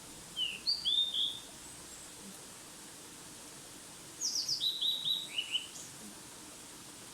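A wild songbird singing two short phrases of quick, downward-sliding chirps, one about half a second in and a second, longer run about four seconds in.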